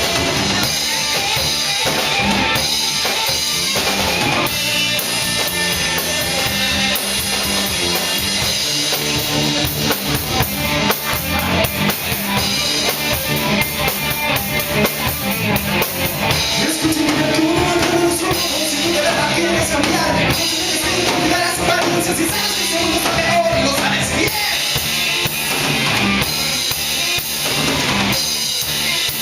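Live band playing hip hop–rock: guitar, bass guitar and drum kit.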